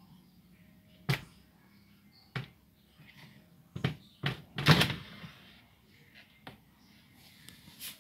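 Irregular sharp knocks and clacks of hard objects bumping, one about a second in, another a little later, and a louder cluster of three about four to five seconds in, with faint ticks near the end.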